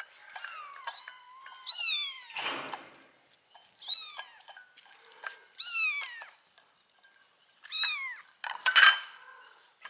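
Young kittens meowing again and again, thin high-pitched cries that slide down in pitch, the loudest coming near the end.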